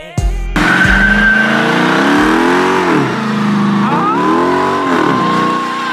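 Car with a HEMI V8 doing a burnout: the engine revs up and drops back twice while the spinning tyres squeal. A few heavy bass notes of music sound in the first second.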